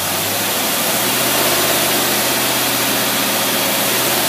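Engine fed by a Predator carburetor running steadily under dyno load near 2,000 RPM, with a steady hiss over the engine note. The engine's pitch steps up slightly about a second in.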